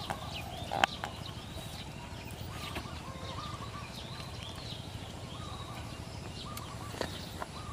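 Birds chirping in short, repeated calls over a steady low background hum. A sharp click stands out about a second in and a fainter one near the end.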